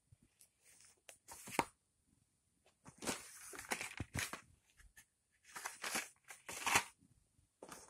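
Rustling and crinkling of magazines and packaging handled by hand as they are picked up and moved, in several irregular bursts, the longest about three seconds in and the loudest near the end.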